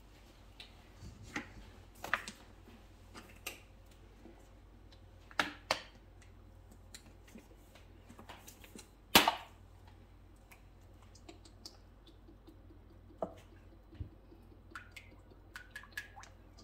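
Scattered light clicks and knocks of kitchen handling by the stove over a faint steady hum, with one louder knock about nine seconds in.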